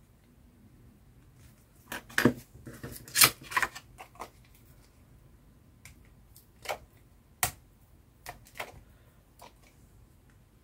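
Small craft pieces and card being handled on a tabletop: a quick flurry of sharp taps and clicks about two seconds in, then a few single taps spaced out near the end.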